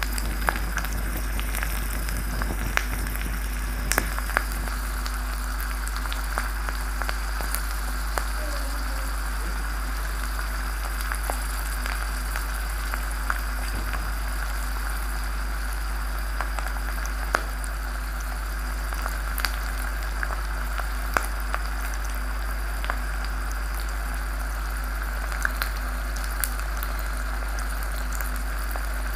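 Hot oil sizzling steadily around a red-hot iron ball dropped into a beaker of popcorn kernels, with scattered sharp crackles and pops throughout.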